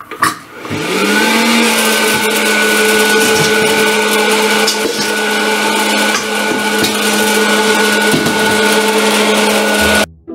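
Hot-air popcorn popper switched on: a click, then its fan motor spins up with a rising whine and settles into a loud, steady whirring hum with a rush of air. It stops abruptly near the end.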